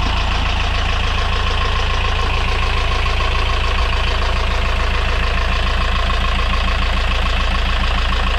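Brand-new Yanmar 4JH5E four-cylinder marine diesel idling steadily on its first run, heard up close in the open engine compartment. It is running smoothly, with its raw cooling water now circulating through the hoses.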